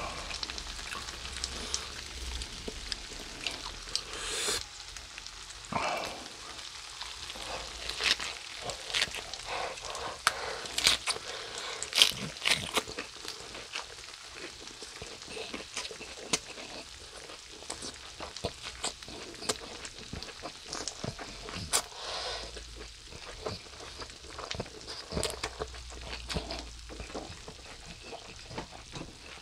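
Spicy stir-fried pork and vegetables sizzling steadily on a hot grill pan, with frequent sharp crackles and pops of spitting fat and sauce.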